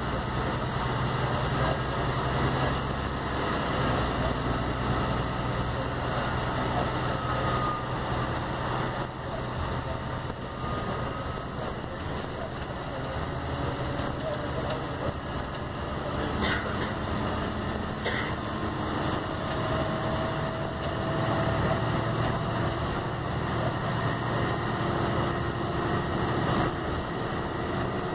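Volvo B8RLE bus running in service, heard inside the passenger cabin: a steady low diesel engine drone with ZF gearbox and drivetrain noise. Over the last several seconds a whine rises slowly in pitch as the bus gathers speed.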